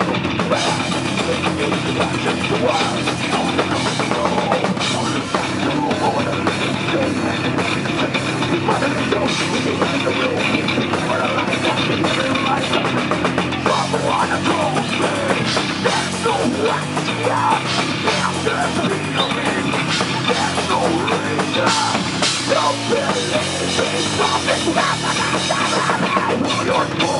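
Heavy metal band playing live: distorted guitars, bass and a fast, busy drum kit, loud and continuous.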